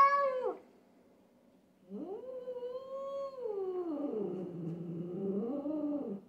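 Cat yowling (caterwauling): one drawn-out call trails off about half a second in, then a second long yowl starts about two seconds in, sinks lower and wavers before stopping near the end. This is the territorial yowl of a cat facing off with a rival cat.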